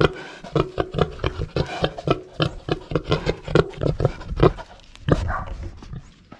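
Pigs grunting: a rapid, irregular run of short grunts, with two louder calls about four and a half and five seconds in.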